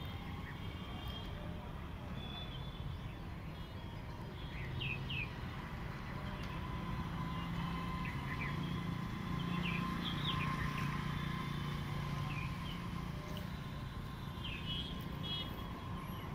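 Birds chirping in short, scattered calls over a steady low rumble of road traffic that swells in the middle.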